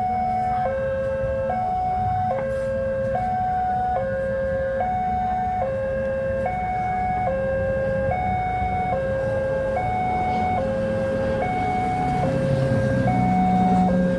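Two-tone electronic warning signal alternating evenly between a higher and a lower note, each held about two-thirds of a second, over a steady low rumble that grows louder near the end.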